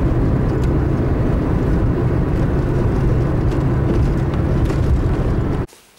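Steady road noise of a car driving at highway speed, heard from inside the cabin: a low, even rumble of engine and tyres. It cuts off suddenly near the end.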